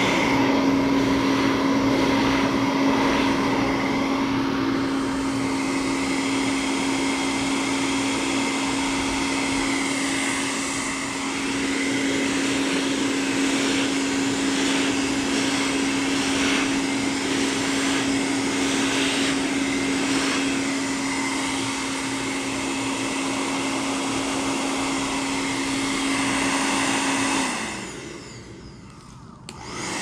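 Hand-held hair dryer running steadily, blowing wet acrylic paint across a canvas in a Dutch pour, with a constant motor hum under the rush of air. It is switched off a couple of seconds before the end and winds down.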